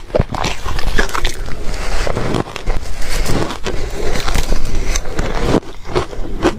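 Ice being crunched and chewed close to the microphone, a dense run of crackling, rapid crunches.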